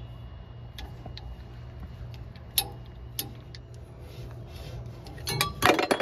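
Mini tubing cutter turned around a copper refrigerant discharge line, giving scattered ticking clicks as it cuts through the pipe, with a burst of louder clicks and knocks near the end. A steady low hum sits underneath.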